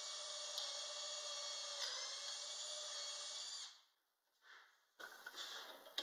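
Cordless drill running steadily as it bores a dowel hole through a joint of a wooden window sash. Its pitch dips briefly about two seconds in, and it stops abruptly a little past halfway, followed by faint handling sounds.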